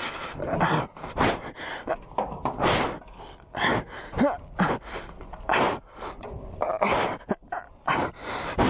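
A person breathing hard and grunting in irregular gasps while climbing, close to the microphone, with knocks and scrapes of hands on a steel shipping container.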